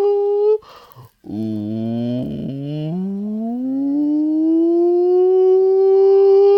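A man's voice holding a long sustained vocal tone, breaking off briefly for a breath about half a second in, then starting low and sliding slowly up in pitch over a few seconds to settle on a steady, higher held note.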